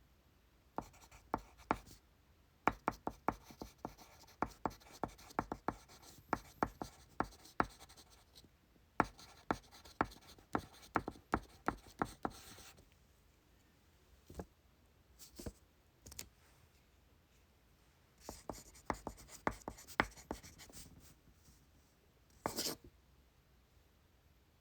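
Pencil writing on exam paper at a desk: quick runs of scratchy strokes and taps, a long stretch, then a pause with a few single strokes, then another short run. Near the end comes one brief, louder noisy burst.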